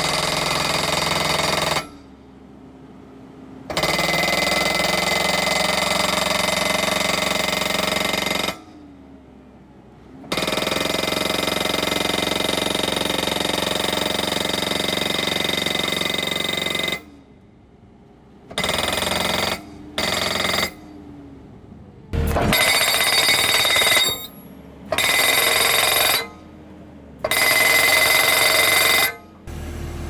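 Eterra PDX-1250 breaker-style hydraulic post driver on a tracked skid steer hammering a wooden post into the ground: rapid, metallic, ringing blows in runs of several seconds, with short pauses where the loader's engine runs on its own. The runs get shorter and come closer together in the second half.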